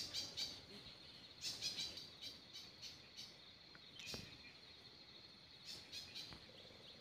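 Faint outdoor ambience: a steady high-pitched insect drone, with short bird chirps every second or two.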